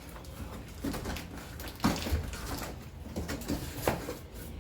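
Handling noises from a cardboard box of groceries being opened and unpacked: rustling with a few soft knocks as items are moved.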